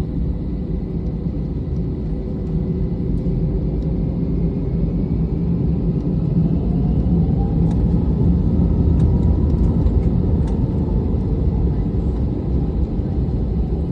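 Airliner jet engines heard from inside the cabin: a steady low rumble that grows gradually louder, with a faint whine rising in pitch about halfway through.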